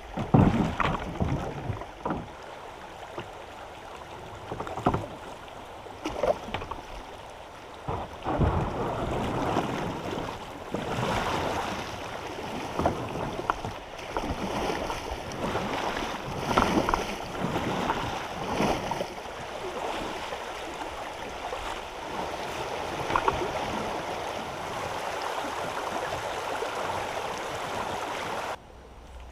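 A kayak on the move: water splashing and sloshing as it is paddled, coming in surges, with scattered knocks against the hull.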